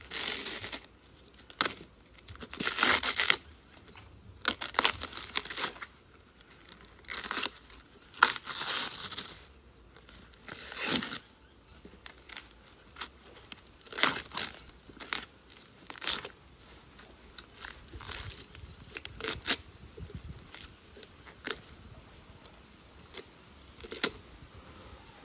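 Tough husk sheaths being torn and peeled off fresh bamboo shoots, a string of rough tearing rasps through the first half, then shorter, lighter snaps and rustles.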